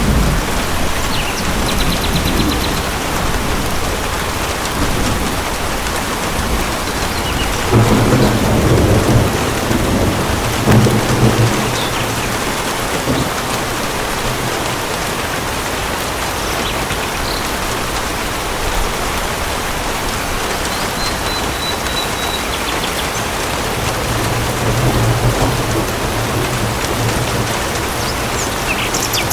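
Steady heavy rain pattering on surfaces, with low rumbles of thunder rolling in three times: about a quarter of the way in, shortly after, and again near the end.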